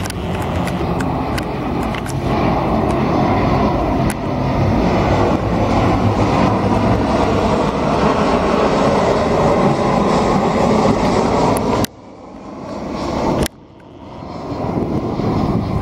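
Loud, steady jet engine noise of an airliner coming in to land. The sound drops away suddenly about 12 seconds in and again a second and a half later, then builds back up.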